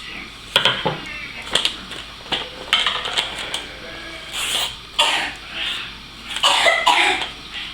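A boy coughing on purpose, a fake cough: a string of short, uneven coughs about a second apart.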